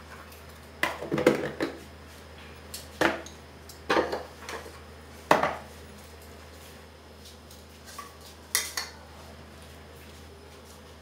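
Kitchen dishes and utensils clinking and clattering: five short bursts of knocks spread over about nine seconds, each with a brief ring, over a low steady hum.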